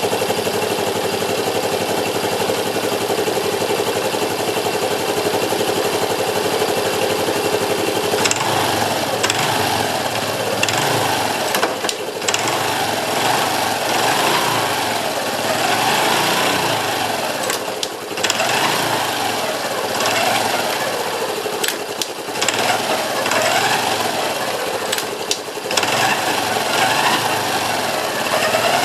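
Honda Cross Cub JA10's single-cylinder engine running with an abnormal mechanical noise. It idles steadily, then from about eight seconds in it is revved up and down again and again, roughly every two seconds.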